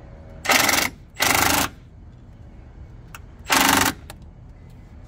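Cordless power tool with a 13mm socket on a long extension, run in three short bursts, each under half a second, with a rapid rattling buzz, driving the battery hold-down bracket bolt back in.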